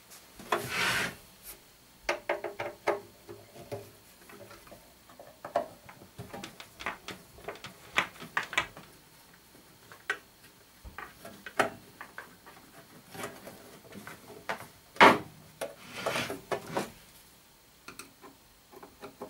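Scraping and rubbing as a heavy metal amplifier is slid and turned on a wooden workbench, with scattered knocks and clicks of handling and a screwdriver being set to its screws. The loudest scrapes come about a second in and again around fifteen to seventeen seconds in.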